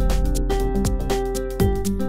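Electronic background music: held synth notes over a beat of deep drum hits that drop in pitch.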